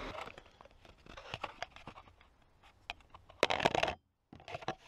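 Close handling noise from a handheld camera: scattered clicks and scratches, with a louder rustle about three and a half seconds in that cuts off suddenly, then more light clicks.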